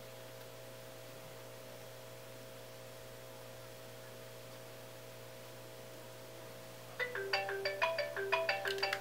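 Mobile phone ringtone: a quick marimba-like melody of short bright notes that starts about seven seconds in, after a faint steady held tone.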